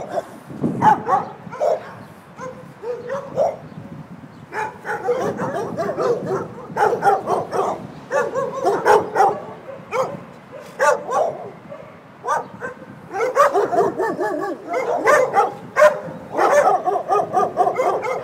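A pack of dogs barking over one another, many overlapping barks at once, easing off briefly twice before picking up again.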